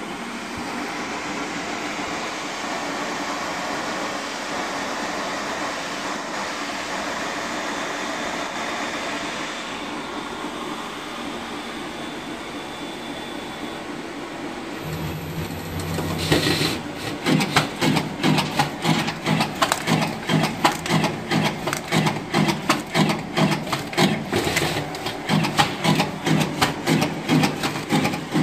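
Uchida Aerocut One card cutter running with a steady mechanical whir as sheets are fed and slit. About halfway through it breaks into a fast, loud run of repeated clacking strokes as the cross-cut blade chops the sheet into business cards.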